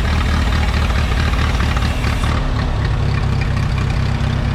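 Old tractor engine idling steadily just after starting. Its note changes about two and a half seconds in.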